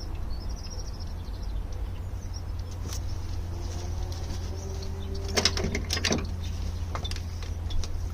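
Small metal parts being handled and fitted by hand: a few sharp clicks and knocks, two quick pairs around the middle, over a steady low hum.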